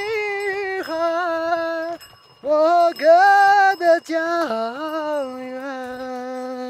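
A solo voice singing long held notes in a fairly high register, with upward slides into each note. There is a brief break for breath about two seconds in, and the phrase settles onto a lower sustained note for the last couple of seconds.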